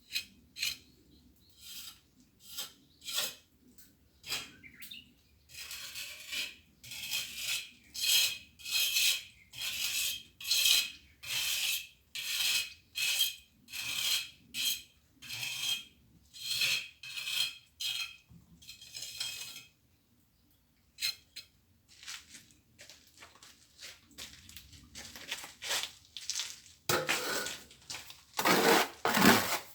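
Steel plastering trowel scraping and spreading cement mortar in repeated short strokes, about one or two a second. There is a brief pause midway, and the strokes grow heavier and fuller near the end.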